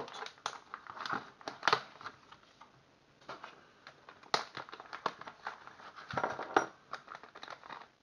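Plastic packaging crinkling and rustling as a pen kit's bag is opened and handled, with irregular sharp clicks and taps, the loudest about two seconds in, midway and near the end.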